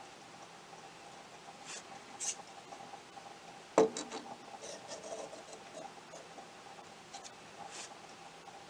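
Faint handling sounds of a measuring caliper against small plastic parts: light scrapes and rubs, with one sharp click about four seconds in, over a faint steady hum.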